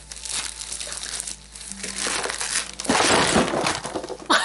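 Packing material crinkling and rustling as hands dig through an opened cardboard shipping box, loudest about three seconds in.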